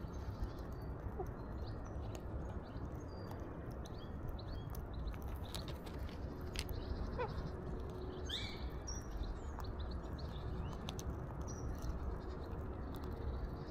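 Birds at a feeder: scattered short high chirps, a few sharp clicks and taps, a falling whistle about seven seconds in and a brief rising call just after, over a steady low rumble.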